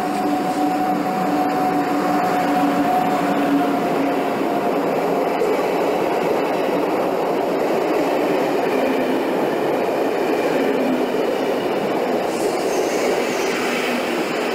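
ÖBB Class 1044 electric locomotive passing with a steady electric hum for the first few seconds, then its train of coaches rolling past on the rails with a continuous rumble of wheels.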